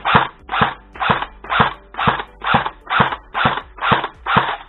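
CYMA CM.506 M4A1 airsoft electric rifle firing single shots at a steady pace, about ten evenly spaced shots at roughly two a second, each a sharp crack with a short rush after it. Faint background music runs underneath.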